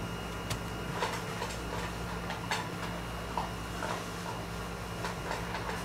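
A few scattered, irregular faint clicks and ticks over a steady low hum.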